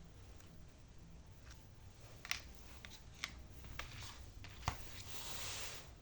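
Small plastic clicks and taps from hands handling the mobile hotspot and its SIM card, four separate clicks with the sharpest about three quarters of the way in, then a short rustle near the end.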